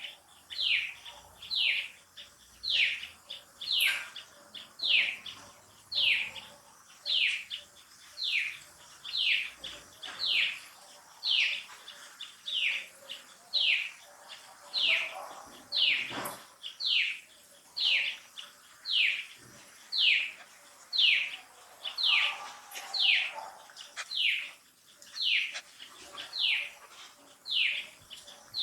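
Baby macaque crying in distress: a high, falling cry repeated over and over, about one to two a second, without a break.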